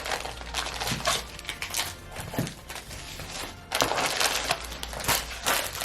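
Snack packaging rustling and crinkling as items are lifted out of a cardboard subscription box, with irregular crackles and light knocks, busier about two-thirds of the way through.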